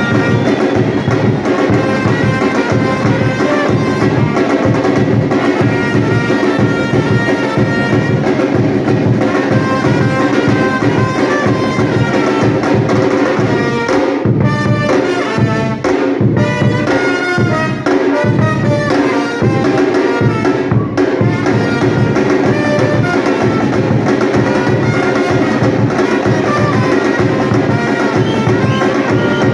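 Batucada drum group playing a steady, driving beat together with loud melodic music.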